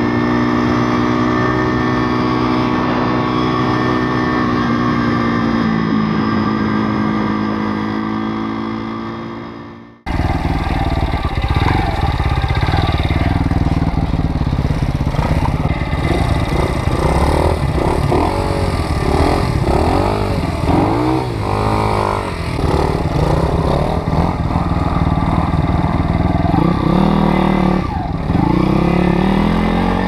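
Single-cylinder four-stroke 160cc pit bike engine running steadily at speed. It dips slightly in pitch about six seconds in and fades out just before ten seconds. Then dirt bike engines rev up and down repeatedly, rising and falling in pitch many times.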